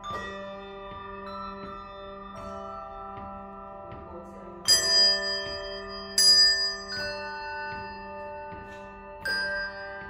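A handbell ensemble playing a slow melody with chords: each bell is struck and left ringing on under the next, so the notes overlap. The two loudest strikes come about halfway through.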